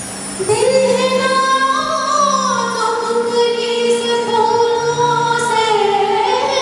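A woman singing a Hindi film song into a handheld microphone over instrumental accompaniment. She holds long notes that slide slowly up and down, over steady low backing notes.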